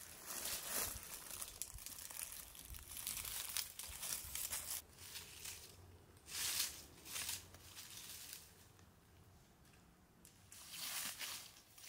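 Dry fallen leaves rustling and crackling in several bursts as they are handled and moved by hand.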